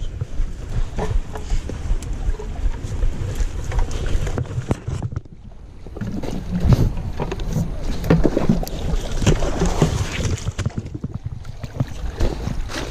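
Close handling and movement noise: chest waders rubbing and rustling against the camera, with feet crunching through dry grass and twigs while stepping down a bank. Irregular crackles and knocks run over a low rumble, with a short lull in the middle.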